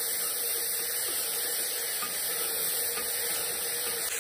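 Sliced onions sizzling steadily in hot oil in a pressure cooker while they are stirred with a spatula, with light scrapes against the pot.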